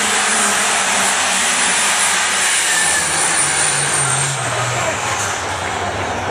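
A competition pulling tractor or truck engine running loud at full power, with a high whine over it. The engine's pitch falls over the last few seconds as it winds down.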